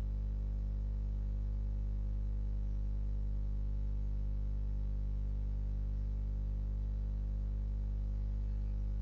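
Steady electrical mains hum: a low, unchanging buzz with a ladder of evenly spaced overtones and faint hiss above it, picked up by the recording setup.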